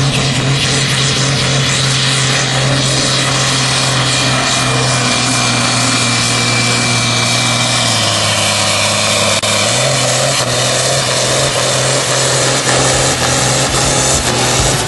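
Ford 8700 pulling tractor's diesel engine running at full load as it drags a weight-transfer sled, a loud steady drone. About eight seconds in the engine speed sags, then picks up again about two seconds later.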